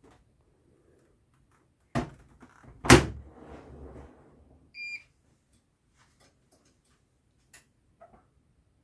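A door is pushed shut: a knock, then a loud slam about a second later, followed about two seconds after by a short electronic beep and a few faint clicks.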